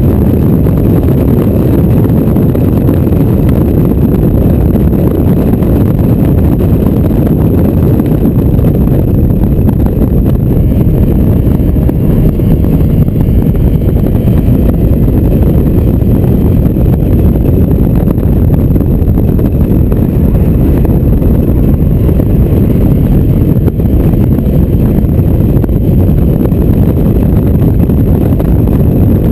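Mazda MX-5 roadster driven hard with the top down: a loud, steady roar of wind buffeting the microphone over the engine and road noise, with no clear change in pitch.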